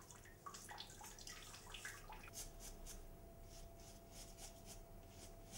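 Faint short scratchy strokes of a razor scraping through shaving foam and stubble, repeated quickly one after another.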